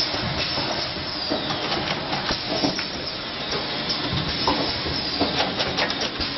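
Automatic doypack spouted-pouch filling and capping machine running: a steady noise with irregular clicks and clanks from its mechanism.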